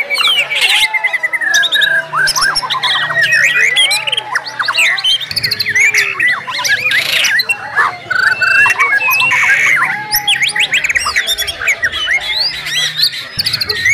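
Several white-rumped shamas (murai batu) singing at once, a dense, unbroken tangle of loud whistles, trills and rapid chirps, including mimicked calls of other birds and fast, sharp 'shooting' notes.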